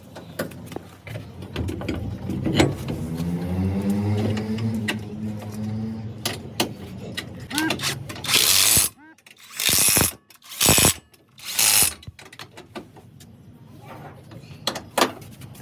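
A power tool running and rising in pitch, followed by several short, loud bursts of noise and scattered mechanical clicks.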